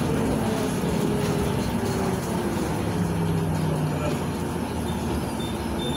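Volgabus-5270.G2 natural-gas city bus under way, heard from inside the cabin: steady engine and road noise. A low engine hum comes up more strongly for about a second, three seconds in.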